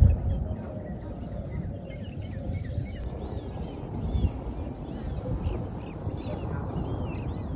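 Many small birds chirping and twittering, with quick short calls over a steady low rumbling noise.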